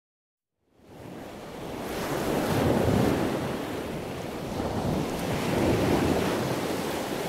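Ocean surf breaking and washing on a beach, fading in about a second in and swelling twice.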